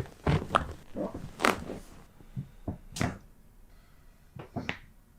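A chiropractic adjustment on a drop table: a handful of sharp, separate cracks and knocks, the clearest about a second and a half and three seconds in, with a quick cluster near the end.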